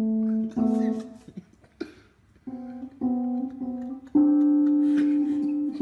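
Electronic keyboard sounding steady, held single notes as a cat steps on its keys, each note starting and stopping abruptly. Two short notes come at first, then a pause, then more notes, with the last one held longest from about four seconds in.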